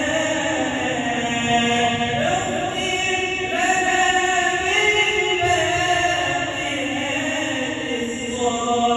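Islamic ibtihal: a male voice chanting a devotional supplication in long, ornamented held notes that glide from one pitch to the next.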